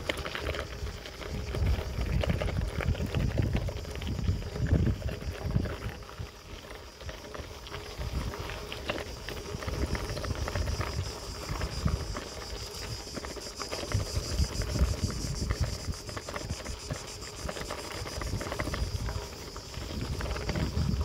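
Bicycle tyres crunching over a loose gravel track, with small rattles and ticks from the stones, while wind buffets the microphone in gusts. A steady high hiss sits behind it.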